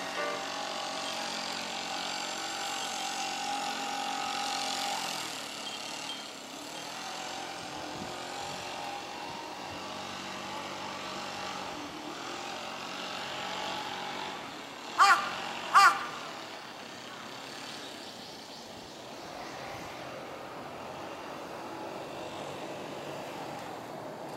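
Outdoor ambience with a steady hum of distant road traffic. About fifteen seconds in, two short, loud pitched calls come less than a second apart.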